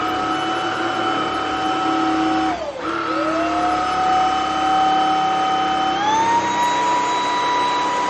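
Greenote GSC50 cordless stick vacuum running on carpet with a steady high motor whine. The whine sags briefly about three seconds in and climbs back, then steps up to a higher pitch about six seconds in, as the suction power setting is switched up.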